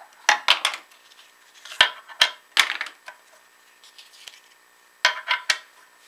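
Small stainless-steel-handled folding knives clicking and clattering as they are lifted from their little presentation boxes and set down on a wooden tabletop, in short clusters of sharp clicks and knocks.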